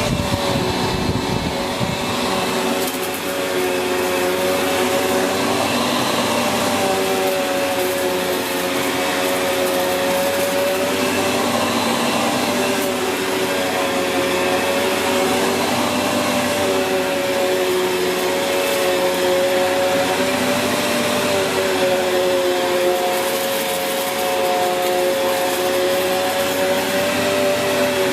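Sanyo SCA-7AX upright bagged vacuum cleaner running steadily, its motor tone wavering slightly in pitch.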